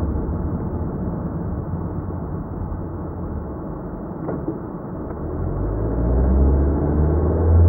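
Car cabin noise while driving: a steady low engine and road rumble that eases off around the middle and then grows louder over the last few seconds as the car picks up speed.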